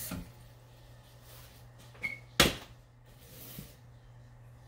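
A kitchen faucet is shut off at the very start, then a small stainless-steel saucepan of water is set down on a glass-top electric stove with a single sharp clunk about two and a half seconds in. A steady low hum runs underneath.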